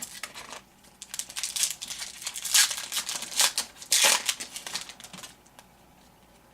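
Crinkling and tearing of a 2007-08 Upper Deck SPX basketball card pack's wrapper as it is torn open and handled, lasting about five seconds and then stopping.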